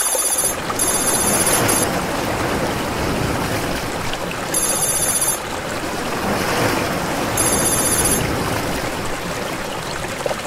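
Shallow creek water rushing and rippling over stones where it runs into the lake, a steady dense splashing. Four short bursts of a very high, rapidly pulsing ringing trill cut in over it, two close together at the start, then one about five seconds in and one about eight seconds in.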